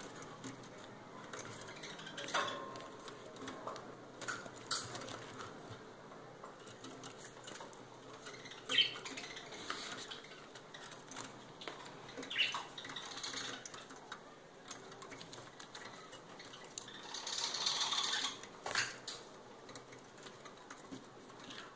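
Small caged bird fluttering and hopping inside a wire travel carrier: scattered light clicks, knocks and rattles of the wire cage and fittings. A longer burst of wing flapping comes about seventeen seconds in.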